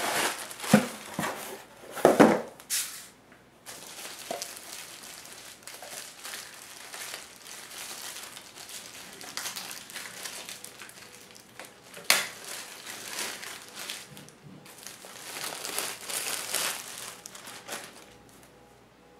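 Packaging being handled during an unboxing, crinkling and rustling in irregular bursts, loudest in the first few seconds and again about twelve and sixteen seconds in.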